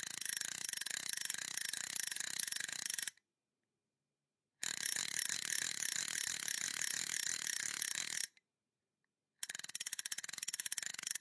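A fishing spinning reel being wound, making a rapid, fine clicking whir. It comes in three runs of about three to four seconds each, with short silences between them.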